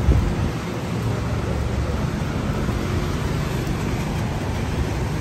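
Steady city-street traffic noise from passing motor vehicles.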